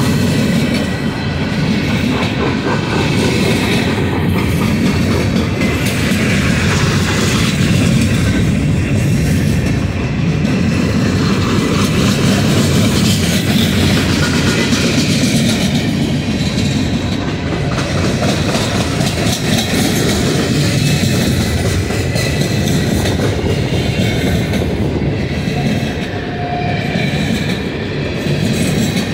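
Freight train of loaded coke hopper cars rolling past, a steady rumble with a close run of wheel clicks over the rail joints.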